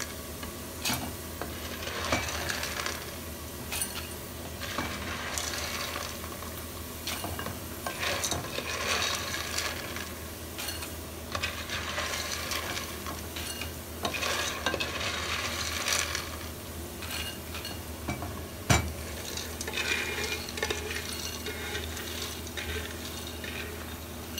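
Slotted spoon scraping through oil-fried tube pasta in a nonstick pot, with the toasted pasta clattering into a glass bowl and a light sizzle of hot oil. There are many small clicks and knocks, with one sharp knock about three quarters of the way through.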